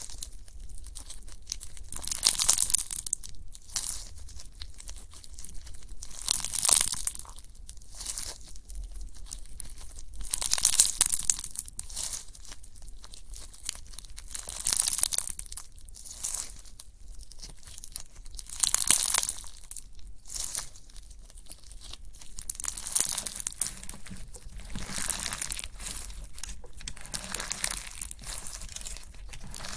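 Hands squeezing and pressing slime, giving crackling, popping squelches that swell and fade about every four seconds.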